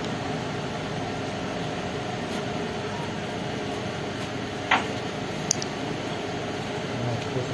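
A steady mechanical hum throughout, with two short light clicks a little past the middle as the ball joint and control arm are handled.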